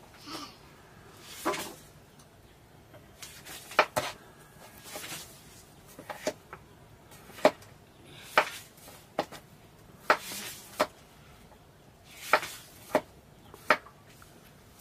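Knife slicing peeled tubers on a wooden board: sharp taps of the blade on the board at irregular intervals, roughly once a second, with softer scraping and rustling between them.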